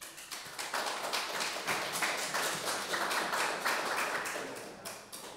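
A small audience clapping, many overlapping hand claps that build up in the first second and fade out near the end.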